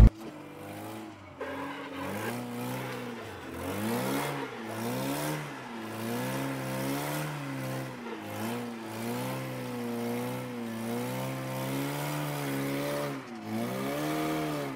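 Zhiguli (VAZ classic) inline-four engine revving up and down over and over as the throttle is worked through a drift, heard from inside the cabin.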